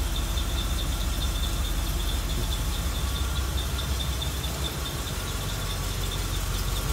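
1981 Chevrolet Corvette's 350 V8 idling, a steady low rumble.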